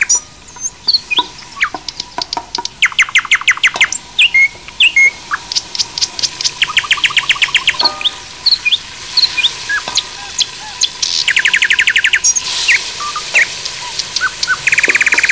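Small songbirds chirping, with fast trills of about a second each repeating every few seconds among scattered single high chirps.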